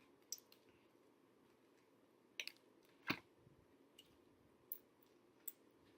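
Faint chewing of a soft doughnut, with a few scattered wet mouth clicks over near-silent room tone.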